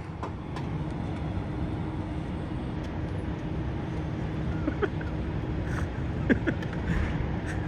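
Steady low rumble of idling semi-trucks, with a thin steady hum from about a second in and a few faint clicks near the end.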